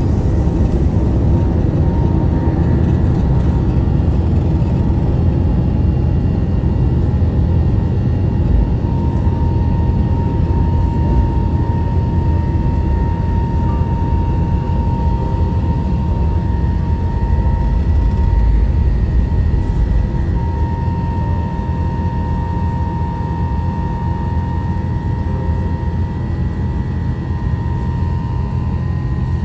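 Jet airliner cabin noise in flight: a steady deep rumble of engines and airflow with a thin steady whine above it, easing slightly a little over two-thirds of the way through.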